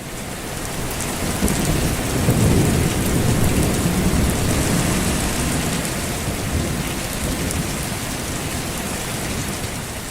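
Rain and thunder: a steady hiss of rain with a low rumble of thunder that swells a couple of seconds in and slowly eases, the whole fading in over the first two seconds.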